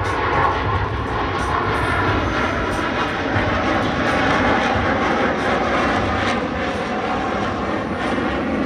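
Jet engines of two Blue Angels F/A-18 Super Hornets running steadily through a slow, nose-high pass, a loud, continuous rumble with a faint whine over it.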